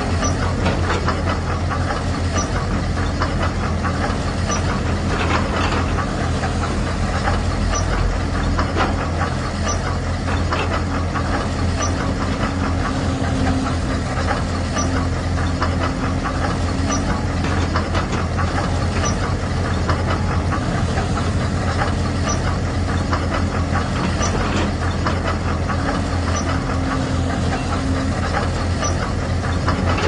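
Heavy diesel engine sound of RC construction models, a bulldozer and an excavator, running steadily with a rapid knocking chug. A higher hum joins for a few seconds twice, once midway and again near the end.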